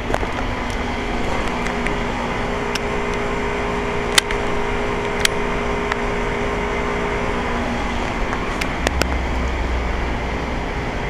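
Rheem stamped-octagon heat pump condensing unit running: a steady hum of compressor and condenser fan, with a few sharp ticks.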